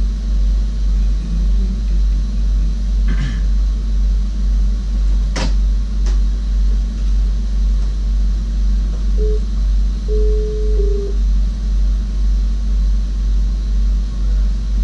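Low steady hum in the cab of a standing SGM Sprinter train, swelling about twice a second. A sharp click comes about five seconds in, and short electronic beeps a little past the middle.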